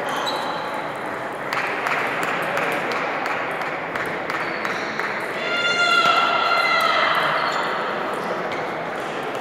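Table tennis rally in a large sports hall: the celluloid ball clicking off bats and the table, over background chatter. About halfway through, a high squeal lasts for about two seconds and is the loudest sound.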